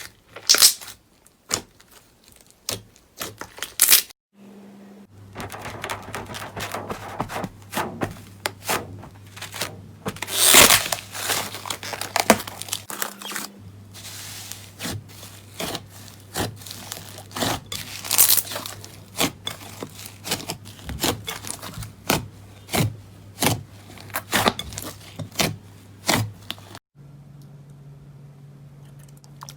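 Slime being squeezed and pressed by hand, giving dense runs of crackling, crinkling clicks and sharp pops, in several short clips with brief gaps between them.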